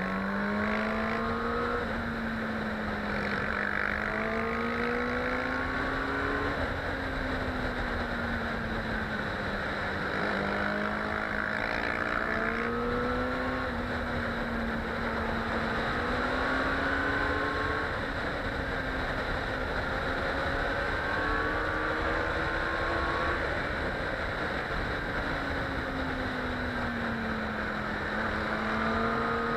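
Suzuki GSX-R 750's inline-four engine running on a motorcycle at road speed, its revs rising and falling gently and repeatedly through a series of bends. Low wind rush on the helmet-mounted microphone runs underneath.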